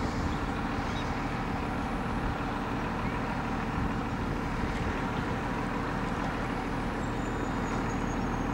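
Steady low rumble of a motor vehicle engine running, even throughout with no change.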